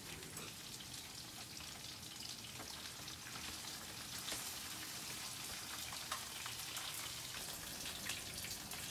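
Food sizzling in a frying pan on a gas stove: a steady hiss with many fine crackles, and a few slightly sharper clicks.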